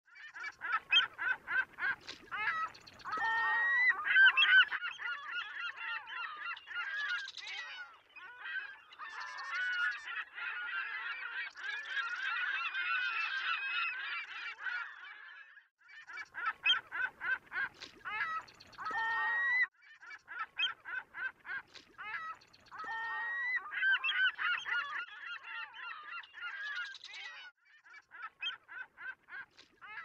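Gulls calling in runs of quick, repeated, honking notes, with several birds calling over one another at times.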